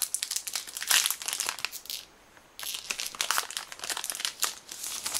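Foil wrapper of a trading-card booster pack crinkling and tearing as it is opened by hand, in two spells with a short pause about two seconds in.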